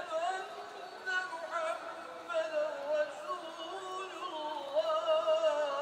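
Background music: a slow melody with a wavering, ornamented line, with no beat and almost no bass.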